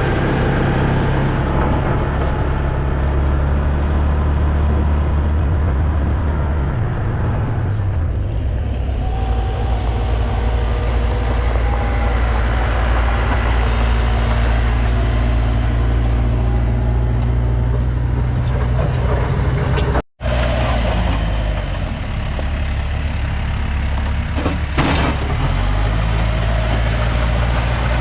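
Backhoe's diesel engine running steadily at work, its pitch shifting a couple of times as the load changes. The sound breaks off for a moment about two-thirds of the way through.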